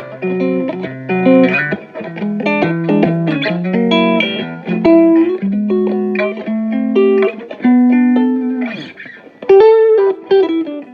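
Electric guitar played through a guitar amplifier: a melodic run of single notes and short chord stabs, with a brief drop about nine seconds in before a loud sustained note.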